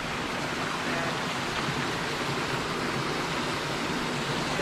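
Steady rush of water flowing through a concrete creek spillway.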